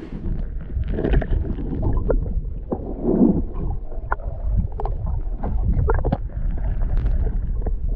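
Muffled water sounds heard through a camera held underwater: a low rumble and gurgle with scattered small knocks and clicks.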